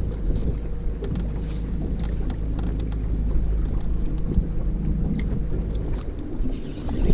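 Wind buffeting the microphone over the steady low hum of a bow-mounted electric trolling motor. The hum stops about six seconds in, and there are scattered light clicks.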